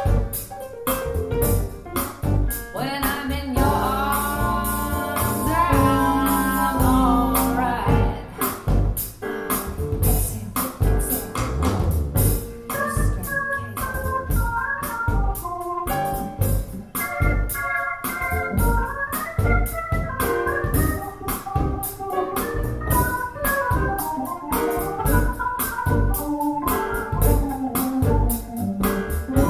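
Music played back through Bowers & Wilkins 707 S2 bookshelf speakers: a song with an organ-like keyboard, a singing voice and a steady drum beat.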